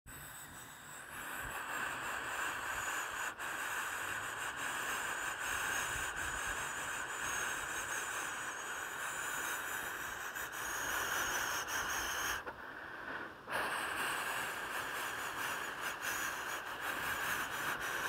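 Waterfall rushing steadily as it plunges into its pool, a constant hissing roar of falling water; the higher part of the sound briefly drops out for about a second a little past two-thirds of the way through.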